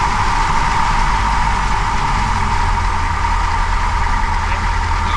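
Light single-engine aircraft's piston engine idling just after start, heard inside the cockpit as a steady engine drone with propeller noise; the engine note settles about two seconds in.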